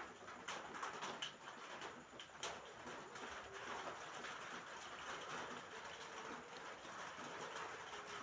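Rain falling on a roof: a steady hiss of rainfall with scattered sharper drop strikes.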